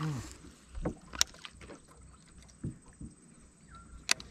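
Handling noise of a baitcasting rod and reel in a wooden boat: scattered sharp clicks and knocks, the two loudest about a second in and near the end.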